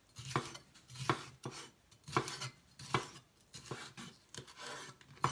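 Chef's knife slicing a green bell pepper into strips on a wooden cutting board: separate knocks of the blade through the pepper onto the board, about one to two a second.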